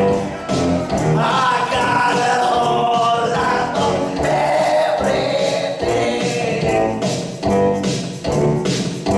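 Music with group singing, like a choir, over percussion.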